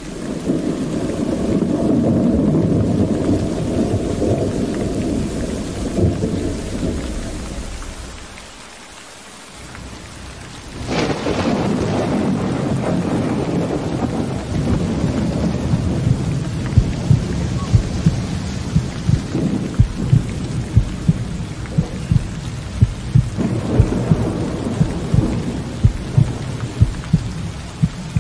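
Thunderstorm: steady rain with rolling thunder, a sharp thunderclap about eleven seconds in followed by long rumbling. In the second half a low thud repeats at an even pace, a little more than once a second.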